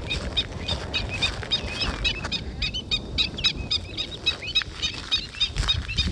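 Many disturbed birds calling in alarm, seemingly over their nests: a dense stream of short, rapid, overlapping high calls. A low rumble runs underneath.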